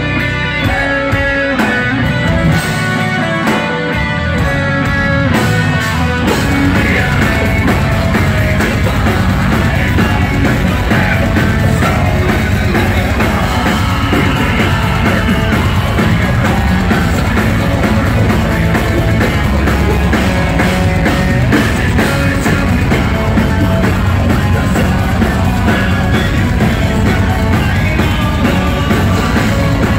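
Folk metal band playing loud live rock. An electric guitar carries a clear melodic lead for the first six seconds or so, then the full band with drum kit comes in.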